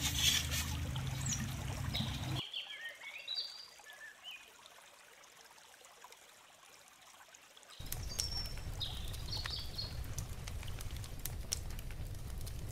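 Small birds chirping now and then over a steady rushing noise. The rushing noise drops away for about five seconds in the middle, leaving the chirps nearly alone.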